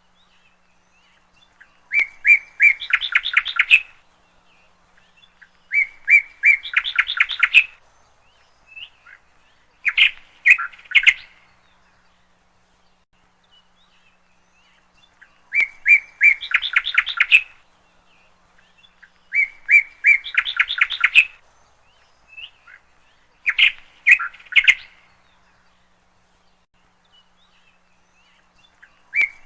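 A woodpecker calling: short bursts of rapid, repeated chirping notes, one to two seconds each, given about every four seconds with pauses between.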